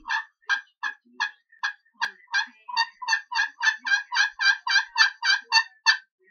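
Pot-style friction turkey call played with a wooden striker, giving a run of about twenty short turkey notes. They come slowly at first, then quicken to about four a second.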